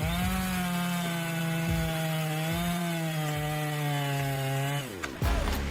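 Chainsaw engine running at steady high revs in a cut. About five seconds in the revs fall away, and a sudden thump follows.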